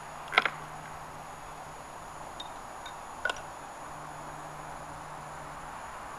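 Savage Model 10 bolt-action rifle being handled between shots: two sharp metallic clicks about three seconds apart, with a couple of faint ticks between them.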